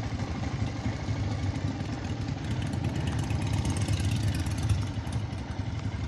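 Motorcycle engine running steadily, with no clear revs or changes in pitch.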